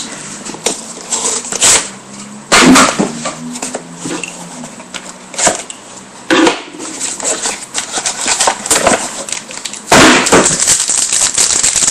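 Trading card box and wrapper being torn open and handled by hand close to the microphone: uneven bursts of tearing and crinkling with knocks.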